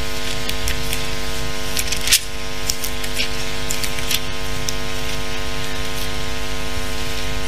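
Steady electrical hum made of several evenly spaced tones over a low rumble, with faint scattered clicks and rustling above it and a brief dip about two seconds in.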